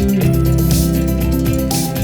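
Background music: a melody of held notes changing every fraction of a second over a steady bass.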